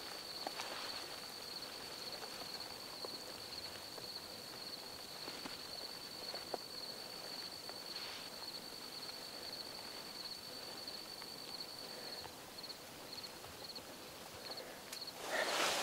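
An insect's steady high-pitched trill over quiet grassland ambience with a few faint rustles. The trill stops about twelve seconds in, gives a few short chirps, and falls silent. A loud rustle starts right at the very end.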